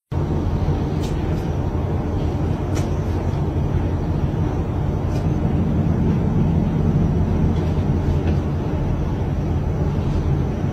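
A steady low rumble that does not change, with a few faint clicks.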